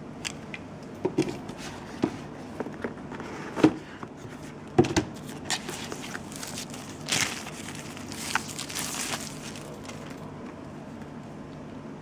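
Handling noises: scattered clicks and knocks of a plastic wall charger and a cardboard box being handled, then plastic film crinkling about seven seconds in as a tablet in its protective wrapping is lifted out.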